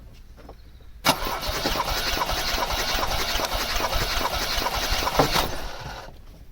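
Vauxhall Cavalier's 1.8-litre engine cranked over on the starter motor for about four and a half seconds without firing, its fuel pump relay removed, for a compression test on cylinder 1. The cranking starts suddenly about a second in and stops near the end.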